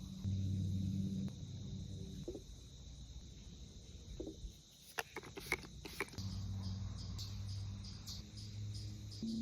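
Crickets chirping steadily in a nature soundscape, their trill turning into evenly pulsing chirps from about six seconds in. A low steady hum sits underneath, and a few sharp clicks come around five to six seconds in.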